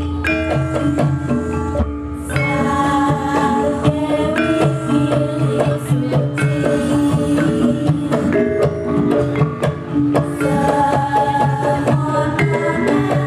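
Javanese gamelan ensemble playing: bronze metallophone keys struck with padded mallets in a continuous melody, layered with kendang hand-drum strokes.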